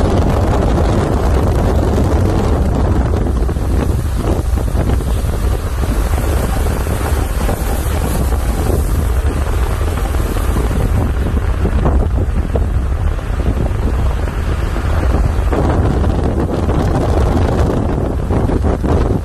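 Steady rush of wind and low road rumble of a car driving, heard from inside the car, with wind buffeting the microphone.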